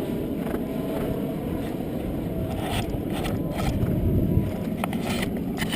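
Steady low wind rumble buffeting the microphone on a moving horse ride, with a few scattered clicks and knocks in the second half.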